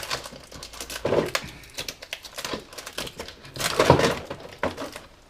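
Cardboard and plastic packaging being opened and handled: irregular rustling and crinkling with scattered small knocks, loudest about a second in and again near four seconds in.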